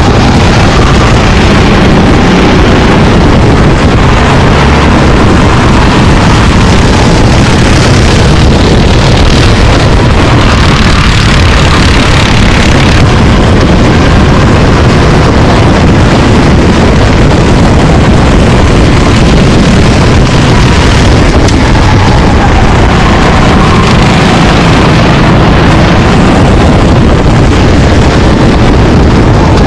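Go-kart engines running on the race track, loud and continuous, with the pitch rising and falling as the karts accelerate and lift.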